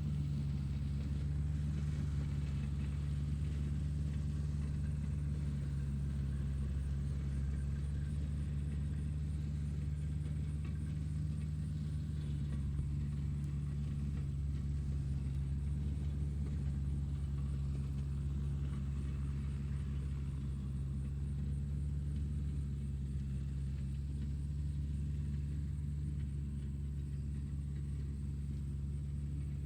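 Tractor engine running at a steady speed: a low, even drone that holds without change.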